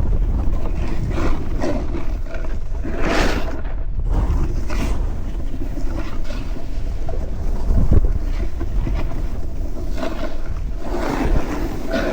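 Wind buffeting the microphone of a camera riding along on a snowboard run, with the board's edges scraping and hissing over the snow in surges as it turns, loudest about three seconds in and again near the end.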